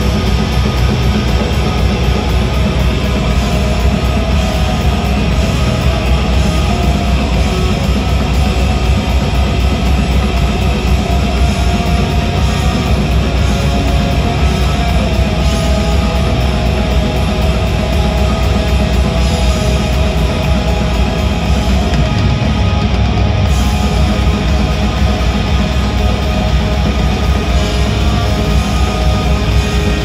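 Post-black metal band playing live: heavy distorted guitars over bass and drums in a dense, loud, unbroken wall of sound.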